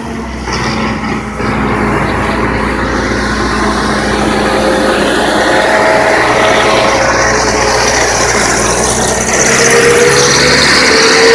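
The diesel engine of an Ajax Fiori self-loading concrete mixer running steadily. Near the end, a higher whining tone rises in pitch and grows louder.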